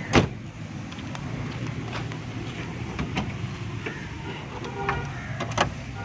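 A steady low mechanical hum, with a sharp click just after the start and a few fainter clicks later.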